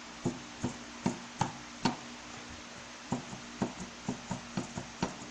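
A VW Beetle pedal being rocked side to side on its pivot shaft, knocking sharply at each end of its travel: about five knocks, then after a pause a quicker run of about eight. The knocking comes from loose play in the pedal pivot, which the owner takes as a sign that the bushings in this 'rebuilt' assembly were not replaced.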